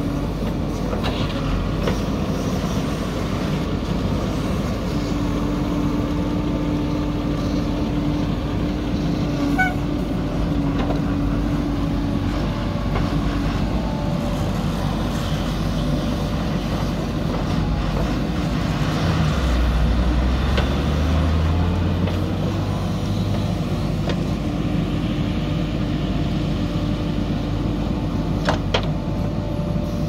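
JCB 3DX backhoe loader's diesel engine running under load as it digs and dumps soil, with a steady whine that comes and goes. The engine note swells deeper about two-thirds of the way in, and there are a couple of metallic clanks near the end.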